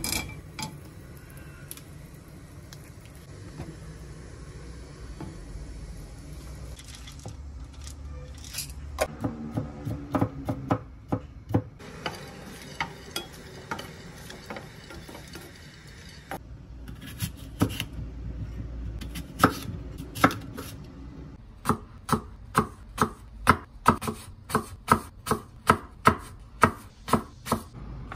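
Kitchen cooking sounds: food sizzling in a frying pan, with utensils scraping and tapping in it. Near the end comes a knife chopping on a wooden cutting board, even sharp strokes at about two a second.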